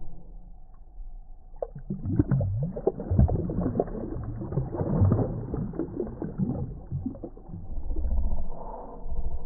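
Water splashing and sloshing as a released largemouth bass kicks its tail and swims off at the surface: a run of irregular splashes for several seconds, starting about a second and a half in, then a low rumble near the end.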